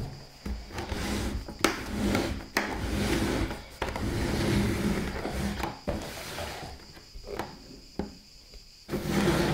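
Handling noises from an iMac G4: a run of sharp clicks and knocks over rubbing and rustling as its white dome base is gripped and the display is tilted on its chrome neck.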